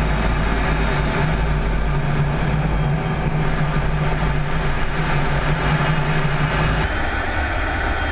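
Steady cockpit noise inside an F-16D fighter in flight: jet engine and air rushing past the canopy, with a steady low hum. About seven seconds in the sound changes abruptly and the hum drops out.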